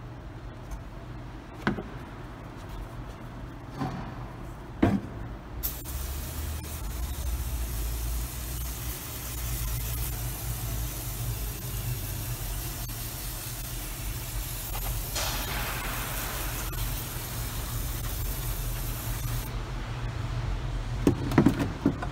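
A few metal clinks from a steel differential cover being handled, then a steady hiss lasting about fourteen seconds that cuts off suddenly, and a short clatter of metal near the end.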